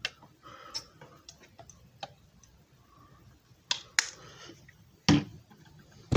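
Irregular light clicks and knocks of objects being handled, with a heavier thump about five seconds in and a sharp knock near the end.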